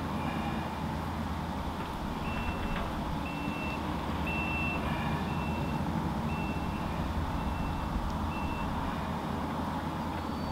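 A vehicle's back-up alarm beeping seven times, about once a second, each beep a single steady high tone, over a steady low engine rumble.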